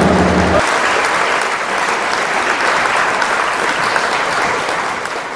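Large audience applauding at the end of a song, the last of the music cutting off about half a second in. The applause starts to fade near the end.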